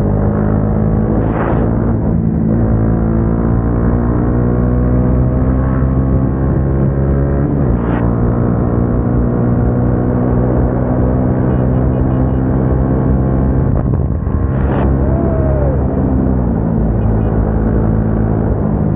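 Single-cylinder motorcycle engine with an aftermarket exhaust, running at a steady cruise. Its pitch drifts slowly up and down, drops twice, and a few short sharp knocks sound over it.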